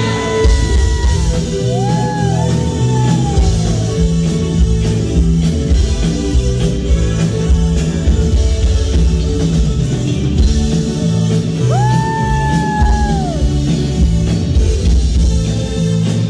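Live band playing loudly, with drum kit, bass guitar, electric guitar, keyboards and a male singer on microphone. Long held notes slide in pitch near the start and again about twelve seconds in.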